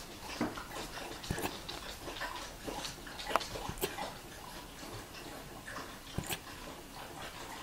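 Alaskan Malamute puppy hiccuping: a series of short, sharp hiccups at uneven intervals, roughly a second apart.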